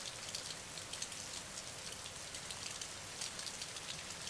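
Steady rain falling: an even hiss with many small, fine drop ticks throughout.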